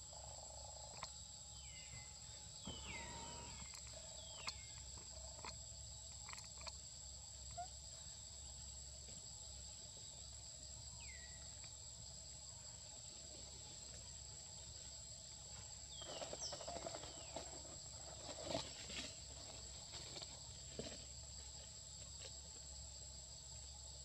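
Faint, steady high-pitched insect drone in forest, with a few short chirps that sweep downward. About two-thirds of the way in there is a brief spell of rustling mixed with more chirps.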